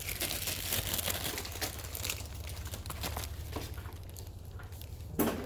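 Packaging crinkling as it is handled: a quick run of small crackles over the first few seconds that then thins out, and a single thump near the end.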